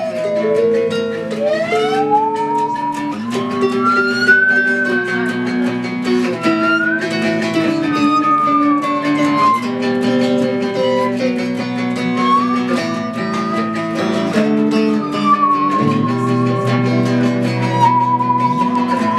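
A band playing: guitar chords under a lead melody that slides smoothly between notes, ending on a wavering held note.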